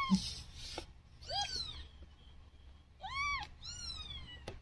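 Newborn Siamese kittens mewing in short, high squeaks, each rising and then falling in pitch: one at the start, one about a second and a half in, and two close together near the end. A faint click comes just before the end.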